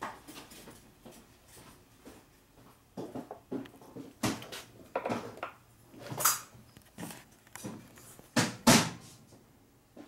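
Steel parts and tools being handled on a stopped metal lathe: irregular metal-on-metal clinks and knocks at uneven intervals, the loudest pair near the end.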